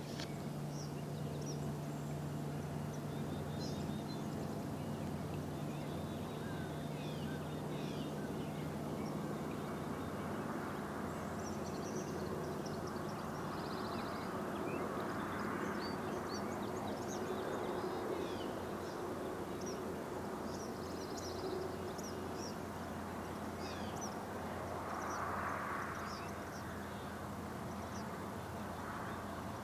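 Many short, high bird chirps and peeps scattered throughout, over a steady low hum.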